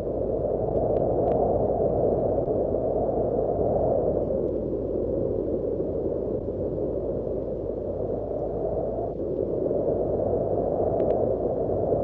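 Wind blowing in a steady low rush. It eases through the middle and picks up again near the end.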